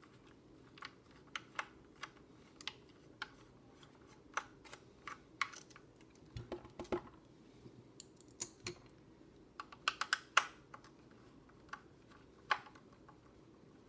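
Light, irregular clicks and taps from handling an opened-up multimeter's case and parts, bunching into quick clusters a few times.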